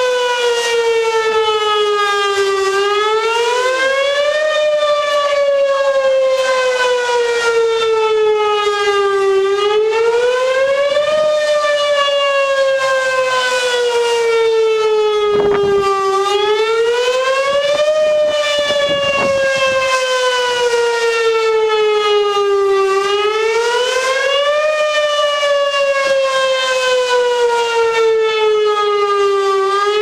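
Pole-mounted outdoor tornado warning siren sounding a wail, the tornado warning signal. A single pitched tone rises over about two seconds, then falls slowly over about five, and repeats about every seven seconds, four times.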